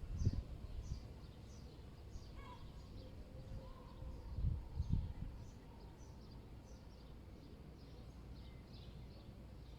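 Small birds chirping in quick, repeated, high, falling notes over a steady low city rumble. Gusts of wind buffet the microphone shortly after the start and again around the middle.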